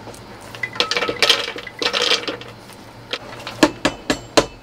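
Fried peanuts and chillies scraped off a metal slotted skimmer with a wooden spatula and dropped into a plastic blender jug: scraping and rattling, then several sharp clicks near the end.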